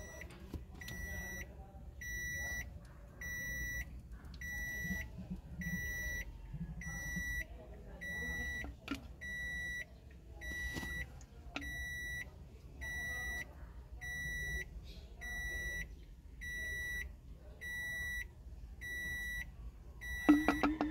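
Vehicle warning beeper sounding a steady, evenly repeated high beep, about one every three-quarters of a second. Near the end a louder burst of rattling with a hum sets in.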